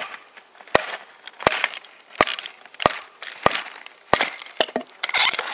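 Wooden baton striking the spine of a TOPS Tom Brown Tracker knife, seven sharp blows in a steady rhythm, driving the thick blade through a knot in a log. Near the end come lighter taps and crackling as the wood splits and the blade passes through the knot.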